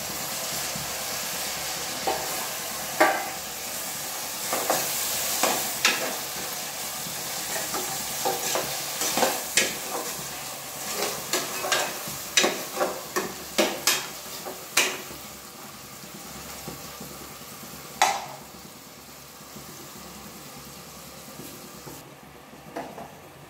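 Chopped tomatoes sizzling in hot oil in an aluminium pressure cooker while a steel ladle stirs them, scraping and knocking against the pot in quick clicks. The sizzle dies down in the second half, with one sharp knock of the ladle later on.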